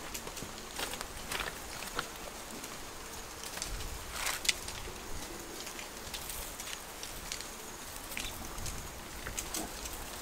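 Water poured from a small bowl splashing and trickling through a woven basket, and hands rinsing what is in it, with one louder, sudden sound about four and a half seconds in.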